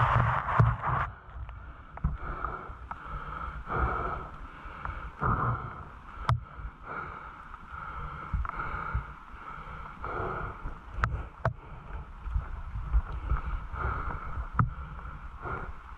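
Wet squelching and splashing in mud on a soaked trail, in irregular bursts about once a second, with wind rumble on the microphone and a few sharp clicks.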